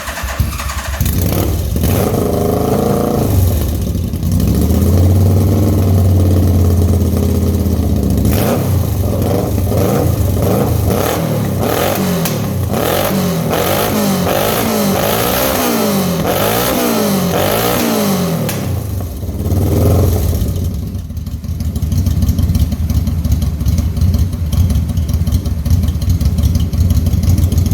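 Motorcycle engine of a buggy running. It settles to a steady run, is revved up and down about once a second for several seconds, then runs steadily again and cuts off suddenly.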